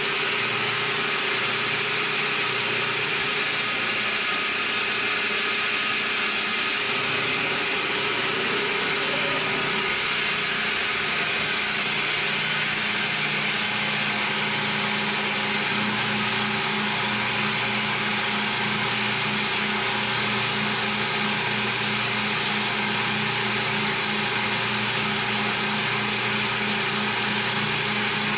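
CNC milling machine running a machining pass: steady spindle and cutter noise with tonal whine. A low pulsing hum joins about twelve seconds in.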